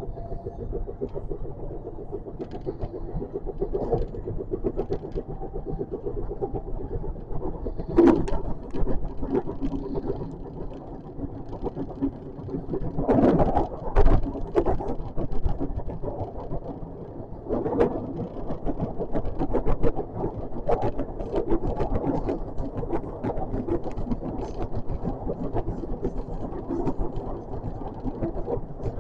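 JR West 521 series electric train running, heard from on board: a steady rumble with a motor hum, and frequent clicks and knocks from the wheels on the track. A few knocks stand out louder, one about eight seconds in and a cluster about thirteen to fourteen seconds in.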